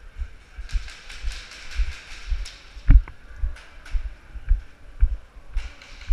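Footsteps of a person moving quickly over a grit- and debris-covered concrete floor: low thuds about two a second, each with a scrape and crunch of grit, with gear rustling. One sharper, louder knock about three seconds in.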